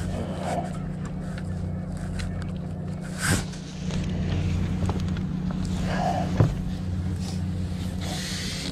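An engine running steadily with a low, even hum. Two knocks stand out, one about three seconds in and a sharper one about six and a half seconds in.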